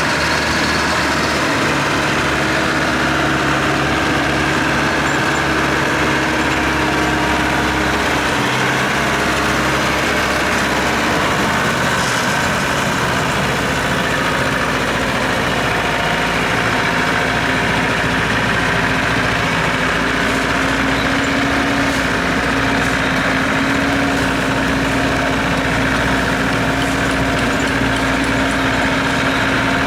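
Heavy construction vehicle's engine running steadily, its note changing about halfway through.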